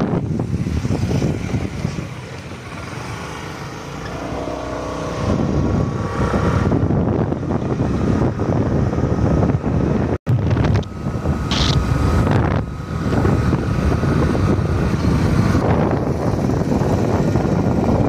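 Wind buffeting the microphone over the rumble of a moving vehicle's road noise, with the sound cutting out for an instant about ten seconds in.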